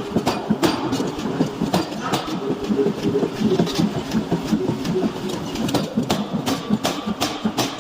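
Forging a steel blank: sharp hammer blows on metal over a fast, steady mechanical clatter, the blows coming several a second near the start and end and more spaced out in the middle.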